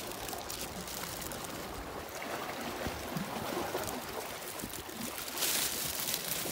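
Steady wash of sea water on the shore. Near the end a plastic bag rustles.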